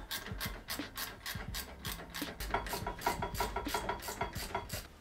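Ratchet wrench with a 15 mm socket clicking rapidly and evenly, about six clicks a second, as it runs in the brake caliper bracket bolts.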